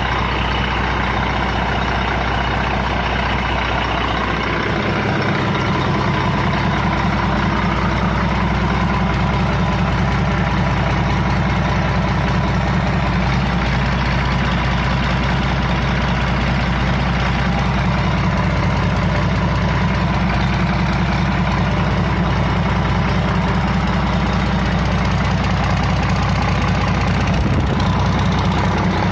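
Freshly overhauled Doosan DX12 six-cylinder diesel engine idling steadily, its low note shifting slightly about five seconds in.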